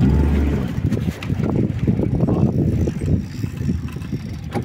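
Wind buffeting the microphone: an uneven low rumble, with a couple of faint clicks.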